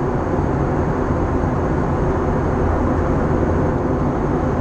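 Cabin noise of an Airbus A321 airliner in flight: a steady low rumble and rush of engines and airflow, heard inside the passenger cabin.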